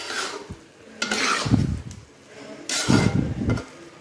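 Metal spatula scraping and stirring thick grated-carrot halwa around a metal kadhai, in three long strokes about a second and a half apart. The carrots' liquid has mostly cooked off, and the halwa is being stirred continually so it dries and does not catch on the bottom.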